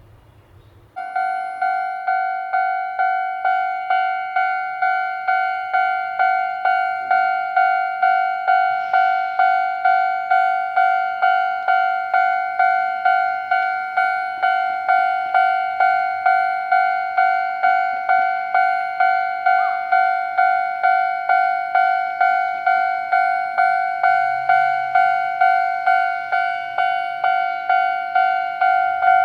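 Railway level-crossing warning bell starting about a second in and ringing steadily at about two strikes a second.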